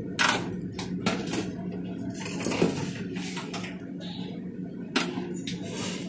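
Metal serving tongs clinking against stainless steel buffet pans as bean sprouts are picked up, several irregular clinks, over a steady low hum.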